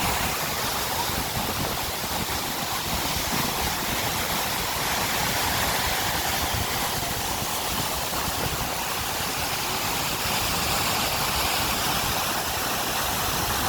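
Steady rushing roar of the Iguazu Falls, an even wash of falling water that never lets up.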